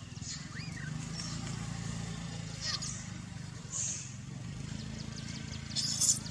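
Steady low mechanical hum with a fine even pulse, like an engine running nearby. Over it comes a brief faint squeak about half a second in, and rustling of dry leaves and twigs near the end.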